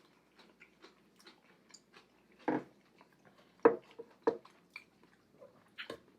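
Close-miked chewing and mouth sounds of someone eating, many small wet clicks with a few louder smacking bites in the middle and near the end.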